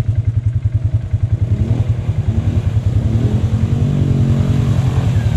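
ATV engine idling close by with a fast, even pulse. From about a second and a half in, a second ATV's engine revs up and down underneath it as that machine drives through the mud hole toward it.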